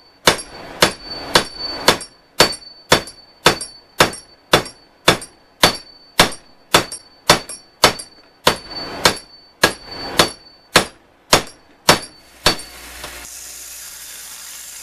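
Hand hammer beating a heated strip of brass door threshold flat on top of a bench vise, about two blows a second, each with a short metallic ring. The hammering stops near the end and a steady hiss follows.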